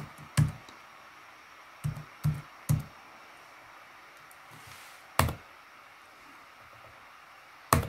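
Keys pressed one at a time on an ASUS ROG Strix G15 laptop keyboard: six separate clicks with a low thud to each. Three come close together about two seconds in, then single presses near five and near eight seconds.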